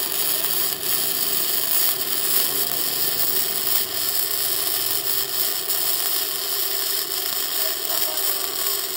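Gasless flux-core MIG welding arc from a Weweld Multimig 230 mini MIG welder, crackling steadily as a bead is laid on thick steel plate, with the voltage set two volts up for deeper penetration.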